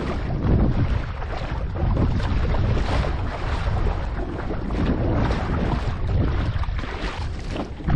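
Wind buffeting an action camera's microphone, with water splashing and sloshing around a board on the sea.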